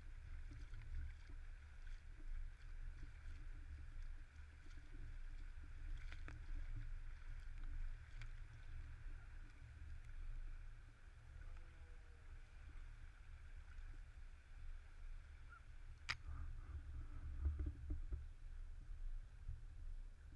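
Low, gusting rumble of wind on the microphone over a faint steady hiss, with a sharp click about sixteen seconds in.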